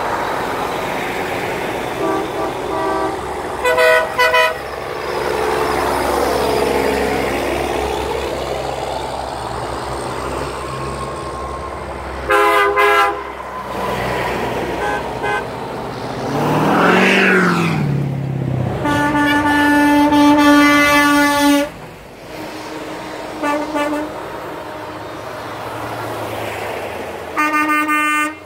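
Trucks driving past close by with diesel engines running, sounding their horns in a series of short and longer blasts, the longest lasting nearly three seconds about two-thirds of the way through. The engine and tyre noise swells and fades as each truck passes.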